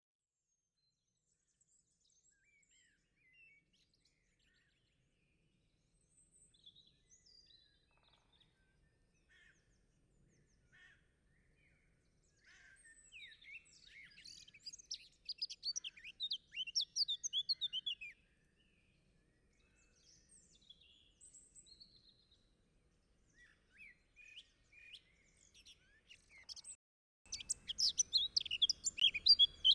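Birds chirping and singing, sparse and faint at first, with spells of rapid chirping in the middle and growing louder near the end, when a low background hum also comes in.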